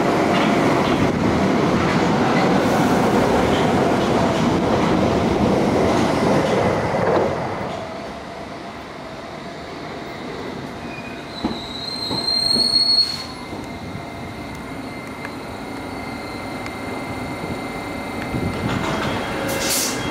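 London Underground Piccadilly Line 1973 Stock deep-tube trains running at speed: the first rumbles and clatters through a station for about seven seconds. After that a second train runs on curved track, with a brief rising high-pitched wheel squeal about twelve seconds in.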